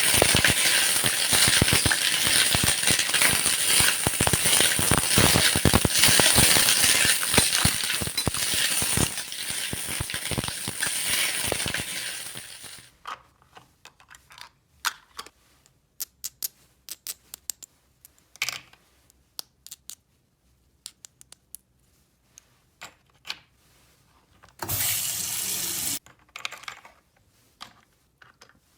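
Many small hard pieces clattering and rattling in a dense stream for about twelve seconds, then stopping. After that come scattered single clicks and a brief rustle near the end.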